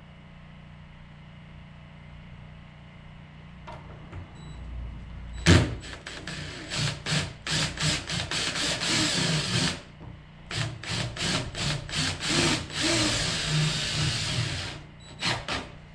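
Cordless drill run overhead into wood, first in quick short trigger bursts, then in two longer steady runs, with a few last short bursts near the end. A sharp knock, the loudest sound, comes a little after five seconds in.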